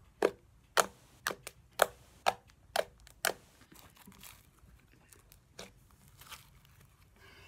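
Slime being pressed and squeezed by hand against a wooden tabletop, giving a quick run of sharp pops about twice a second for the first three seconds, then softer squishing with one more pop near the middle.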